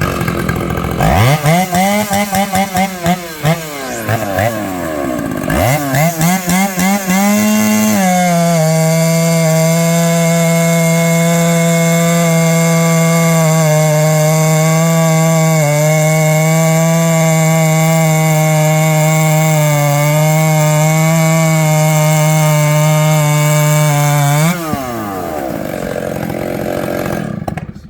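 Two-stroke chainsaw revved in short blips, then held at full speed under load for about sixteen seconds as it cuts through a log, then dropping back to idle near the end.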